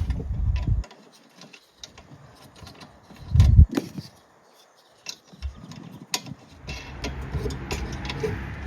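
Hands handling small metal hardware (bolts and washers) on a bike rack: scattered light metallic clicks, with a dull knock near the start and another about three and a half seconds in, then steady handling noise near the end.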